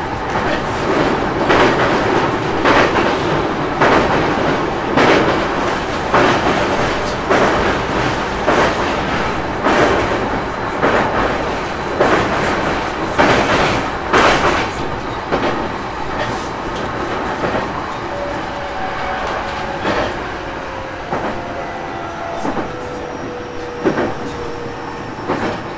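Interior running sound of a JR East E233 series electric train's motor car, with wheels clacking over rail joints about once a second. From about two-thirds through, a motor whine falls slowly in pitch as the train slows.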